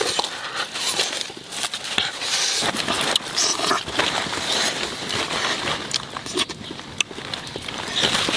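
Close-up handling noises of a whole raw chicken being stuffed by hand on a bed of fresh leaves: leaves rustling and crackling with irregular wet scrapes and small clicks.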